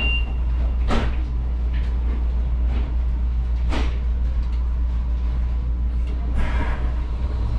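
Steady low hum of a HermeLijn tram heard from its cab, with two short, sharp noises about one second and about four seconds in.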